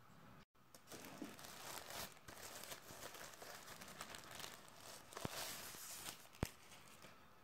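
Tissue-paper wrapping crinkling and rustling as it is lifted and unwrapped from a boxed mirror dashcam. Two sharp clicks come near the end, the second the loudest.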